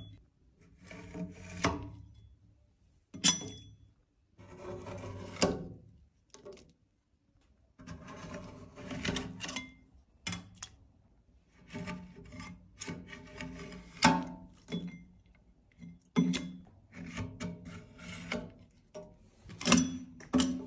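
Flat metal scraper scraping thick built-up wax off the metal rims of candle-wax vats, in repeated strokes with short pauses, a few strokes starting with a sharp scrape.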